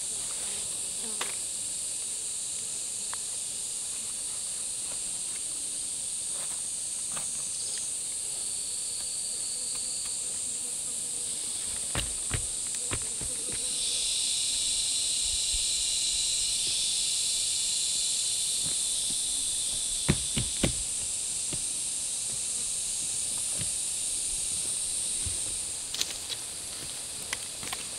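Steady high-pitched chorus of insects such as crickets or cicadas, with a second, lower insect buzz joining about halfway through and dropping out near the end. A few sharp knocks sound, in pairs and threes, about halfway and two-thirds of the way in.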